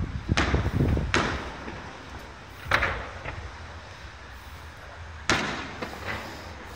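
Fireworks shells bursting in the sky: about five sharp bangs at uneven intervals a second or two apart, each fading briefly.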